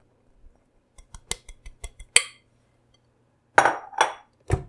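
Light clinks and knocks of a glass bowl and hands against a KitchenAid stand mixer's steel bowl and flat beater as flour is tipped in: about ten quick light clicks, then three louder knocks with a short ring near the end. The mixer is not running.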